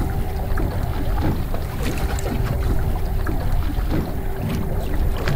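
Steady low rumble of wind and water on a small fishing boat, with a faint steady hum and scattered light clicks.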